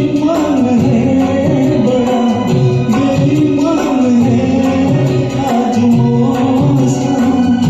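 A man singing an old Hindi film song over a karaoke backing track, his melody gliding over the steady accompaniment.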